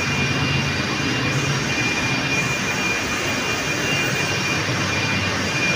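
Sugar factory turbine and machinery running: a loud, steady roar with a low hum and a constant high whine.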